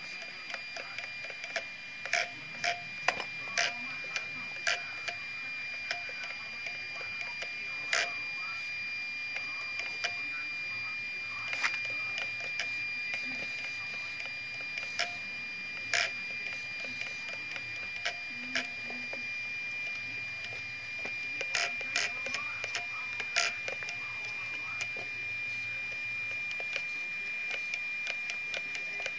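JX 32 kg digital RC servo being swung back and forth from a transmitter's steering wheel: a steady high whine, broken by short sharp clicks as the horn snaps to new positions, several in quick succession near the start and again about three quarters of the way through.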